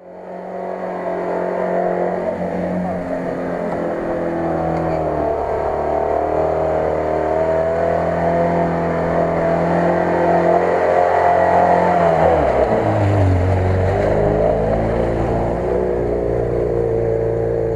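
Lada Niva 4x4's engine running hard at high revs as it pushes through deep mud and water; its note drops about twelve seconds in.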